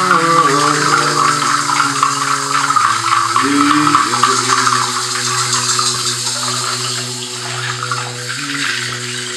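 A strung rattle of pods or shells shaken continuously, giving a dense hissing rattle. Underneath it, low held notes change pitch every few seconds.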